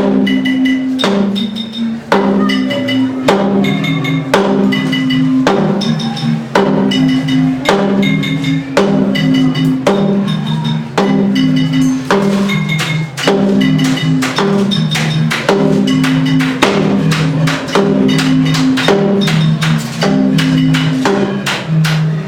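Band playing live: drums keep a steady beat under a repeating low melody of held notes, with short high notes above.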